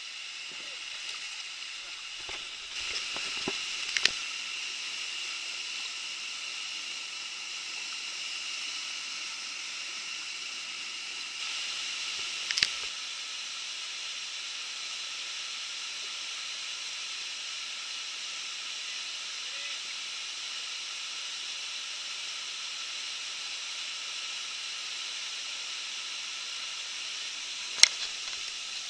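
River rapids rushing in a steady hiss of whitewater, with a few sharp knocks about four seconds in, near the middle and near the end.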